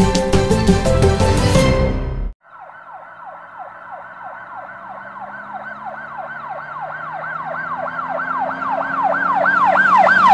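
Music that cuts off suddenly about two seconds in, followed by an emergency-vehicle siren in a fast yelp, rising and falling about four times a second and growing steadily louder.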